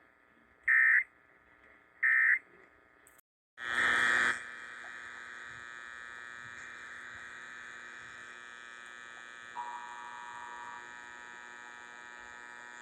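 Two short EAS end-of-message data bursts, harsh warbling digital tones about 1.4 s apart, that close an alert test. The audio then drops out briefly. A little over three seconds in, a brief loud burst starts a steady electrical buzzing hum that carries on.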